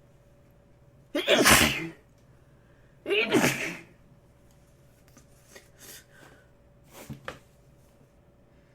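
A person sneezing twice, two loud sneezes about two seconds apart, followed by a few softer, shorter sounds.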